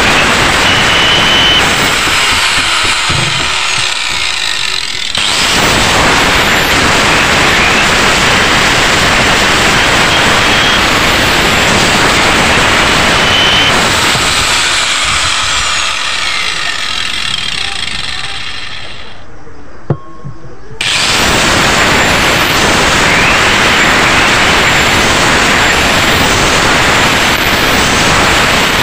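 Electric angle grinder with a sanding disc grinding the blades of a Yamaha 15 outboard's four-blade propeller, reshaping them. The loud, steady grinding dips briefly early on, fades away about 15–19 seconds in, and after a click starts up again about 21 seconds in.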